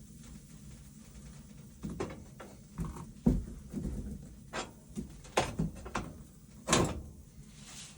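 A series of short knocks and clatters in a small room, about ten irregular strikes, the loudest near the end.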